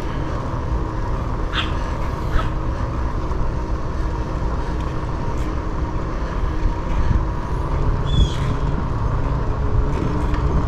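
Steady wind rumble on the microphone while moving along a paved road, with a few brief high chirps, the clearest about eight seconds in.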